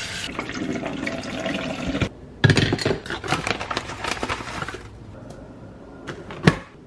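Tap water running into a glass coffee carafe at a stainless steel sink for about two seconds. Then come a couple of seconds of clattering and knocking as the carafe is handled, and a single sharp knock near the end.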